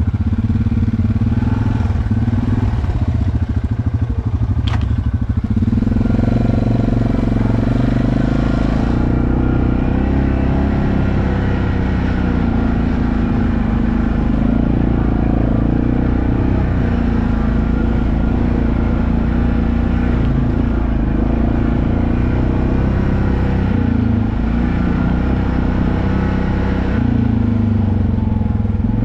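ATV engine running on the move over a rough dirt trail. The engine note climbs about five seconds in as the throttle opens, then holds with small rises and dips.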